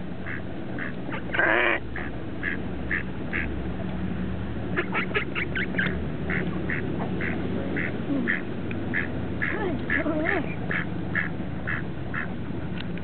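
Ducks quacking over and over in short calls, about two a second, with a quicker run of quacks about five seconds in.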